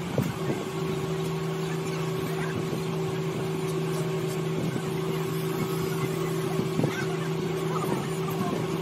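Carbon-rod arc tool melting the lead cell connector of a lead-acid battery: a steady electrical hum with irregular crackling and sizzling at the glowing contact point, the hum dropping out briefly about seven seconds in.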